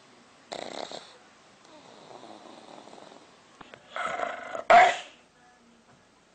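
A pit bull-type dog vocalizing about four seconds in with a short two-part bark-like sound, the second part louder. A shorter, fainter sound comes about half a second in.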